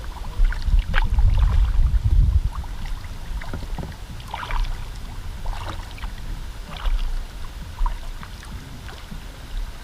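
Paddle strokes on a river: the blade dips and splashes the water roughly once every second or so. Under it runs a low rumble of wind on the microphone, heaviest in the first couple of seconds.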